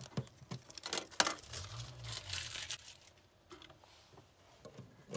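Masking tape being peeled off a panel and crumpled up: a few sharp crackles about a second in, then a longer tearing stretch, dying down to faint ticks after about three seconds.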